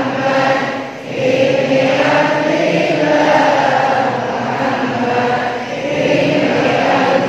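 A large congregation of men's voices chanting together in unison, in long held phrases, with short breaks for breath about a second in and again near six seconds.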